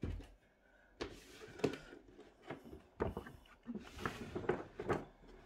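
Cardboard figure box being handled on a wooden tabletop: a few sharp knocks of the box against the table, with rustling and scraping of cardboard between them.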